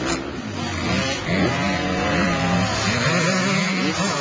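Dirt bike engine revving up and down in short blips, its pitch rising and falling several times.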